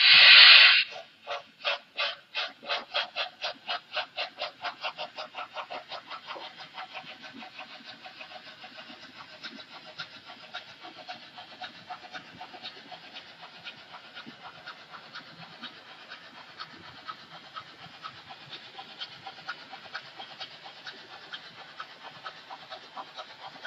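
Model BR 50 steam locomotive's sound effects: a loud burst of steam hiss just at the start, then rhythmic chuffing that quickens and fades over the first several seconds, carrying on faint and fast after that.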